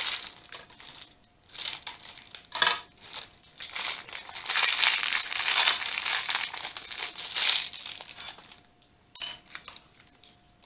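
Lego minifigure blind bag crinkling in bursts as it is torn open and handled, with small plastic parts clicking as they are tipped out. The crinkling dies down near the end.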